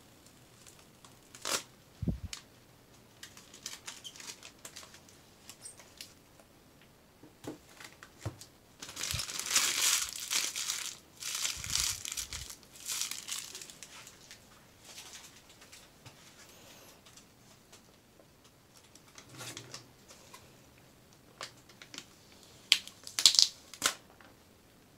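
Clear plastic packaging crinkling and rustling as gloved hands unwrap a tablet. It comes in irregular bursts with a few soft thumps: the densest crinkling is about nine to thirteen seconds in, and there are sharp crackles near the end.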